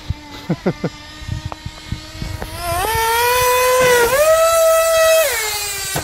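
Small nitro-powered RC buggy engine idling with a few quick blips, then revving up to a loud, high-pitched whine about two and a half seconds in. The pitch climbs again a second later, holds, and drops back near the end.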